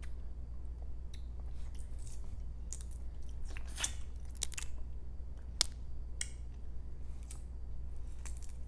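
Close-up eating sounds of balut, a boiled fertilized duck egg, being chewed: scattered crisp clicks and wet mouth smacks over a steady low hum.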